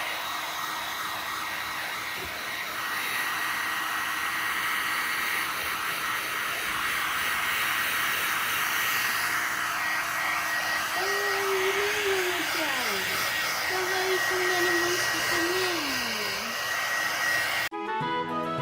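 Hand-held hair dryer blowing steadily on a small dog's coat after her bath, a strong even rush of air. It cuts off abruptly near the end as music starts.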